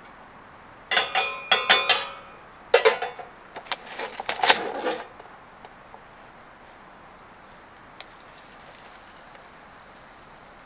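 Stainless steel cooking pot and its lid clinking and clattering with a metallic ring, in several quick bursts over about four seconds. After that only a low steady hiss remains.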